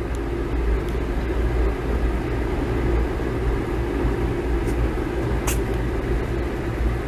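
A vehicle's steady low rumble, with a few faint clicks, the clearest about five and a half seconds in.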